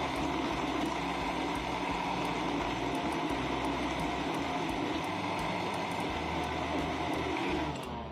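Countertop blender motor running at a steady speed, whirring as it blends a yellow iced smoothie; it winds down and stops just before the end.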